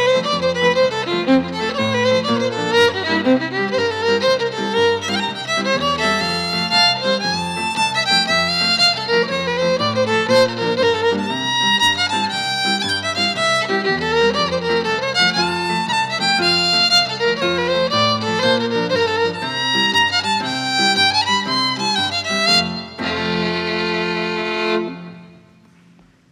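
Solo fiddle playing a tune in quick, changing notes. It finishes on one long held note that breaks off about two seconds later and dies away.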